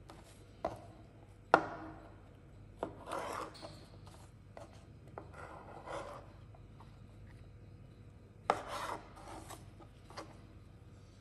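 Chef's knife slicing oyster mushrooms on a plastic cutting board: irregular sharp taps of the blade striking the board, the loudest about a second and a half in, with short scraping swishes as the blade cuts through and slides across.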